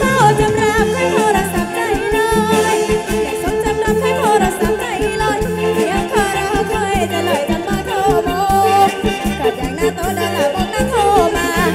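Live kantrum band music from a band with drum kit and horns, with a woman singing the melody over a steady driving beat.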